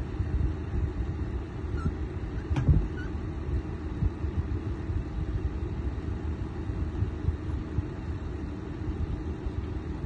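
Electric fan heater running, a steady low rushing rumble of blown air, with one brief knock about two and a half seconds in.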